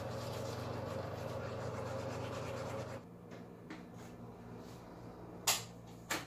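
Teeth being brushed with a toothbrush, a rapid steady scrubbing, for about three seconds. Then a door handle and latch click twice near the end, the first click the loudest.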